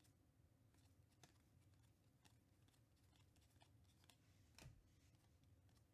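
Near silence, broken by faint scattered ticks of slick Panini Mosaic trading cards being slid off a stack one at a time, with one slightly louder soft bump about four and a half seconds in.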